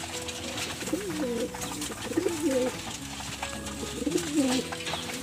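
Domestic racing pigeons cooing while crowding together to feed, with three low warbling coos and wings flapping and clattering among the flock.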